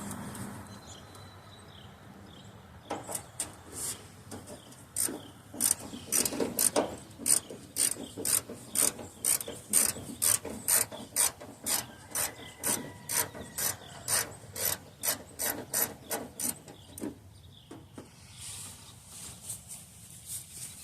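Hand socket ratchet clicking in a steady run, about two clicks a second, as a small bolt is turned out. The clicking starts about three seconds in and stops a few seconds before the end.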